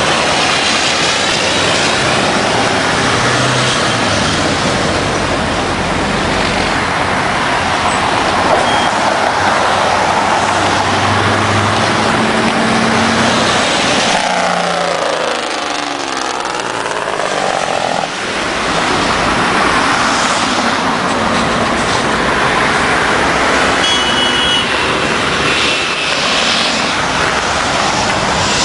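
Road traffic passing close by: trucks and cars driving past with engine and tyre noise. One vehicle sweeps past very close about halfway through.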